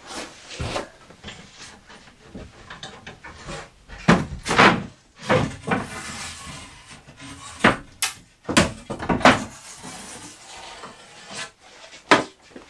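Wooden boards and gear being handled on timber shelving: a run of irregular knocks and clunks, wood against wood, the loudest cluster between about four and ten seconds in.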